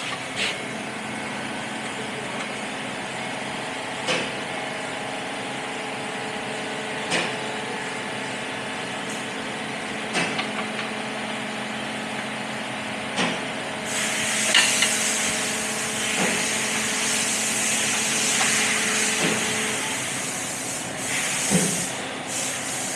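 Steady mechanical hum with a sharp click about every three seconds, and a hiss from a little past the middle that fades out again about six seconds later.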